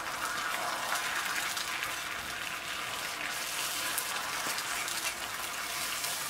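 Beaten egg sizzling in a small cast-iron skillet as it is stirred and broken up with chopsticks, a steady frying hiss.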